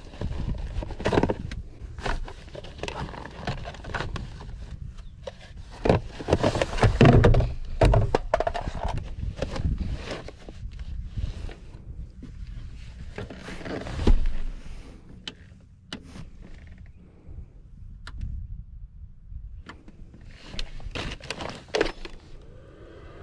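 Gloved hands moving hard plastic tool batteries and battery chargers, with irregular knocks, thuds and rustling of a plastic bag and cloth. The busiest handling comes about six to nine seconds in and again around fourteen seconds.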